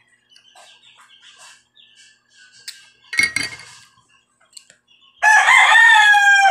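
Rooster crowing once near the end, one long call of about a second and a half that rises briefly and then falls slightly.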